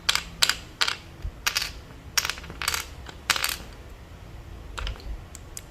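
PBT plastic keycaps dropped one after another onto a hard surface in a drop test of how dense the plastic sounds: about seven sharp clacks with a short ring, all in the first three and a half seconds, then only a few faint ticks.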